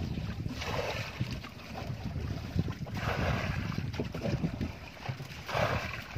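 Small engine of an outrigger fishing boat running steadily with a low rumble, with three louder rushes of hiss from wind and water over the open boat.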